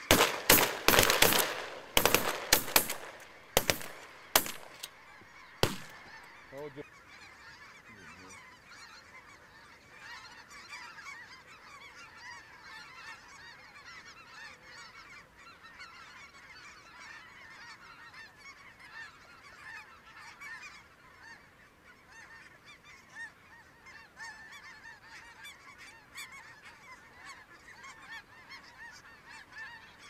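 Several shotguns firing a rapid volley, about a dozen shots in the first six seconds, over the dense, continuous honking of a huge flock of snow geese. The goose calling carries on after the shooting stops.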